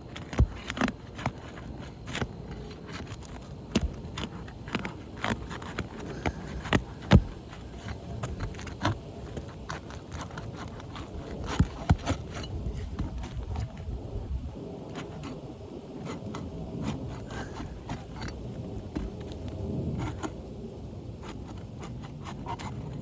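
Metal pry tool working under three-tab asphalt roof shingles to remove one, with scraping and many sharp irregular clicks and knocks, the loudest about seven and twelve seconds in, fewer near the end.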